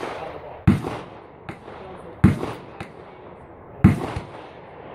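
Three gunshots about a second and a half apart, each with a short ringing tail, and a few fainter pops between them.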